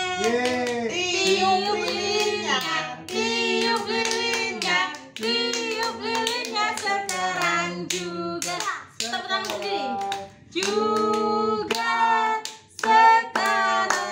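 A family, adults and children, singing an Indonesian birthday song together, with hands clapping along to the beat.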